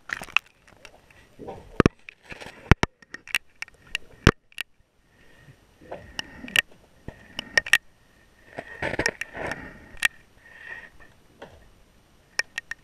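Irregular sharp clicks and taps with muffled knocks and rustling, picked up underwater by a GoPro inside its waterproof housing.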